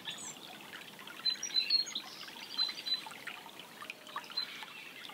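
Shallow chalk-stream water running over a riffle, a steady trickling and babbling with small irregular splashes.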